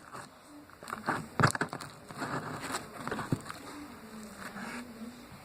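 Slime being stretched and worked by hand: irregular soft, sticky crackles and clicks, with one sharper click about one and a half seconds in.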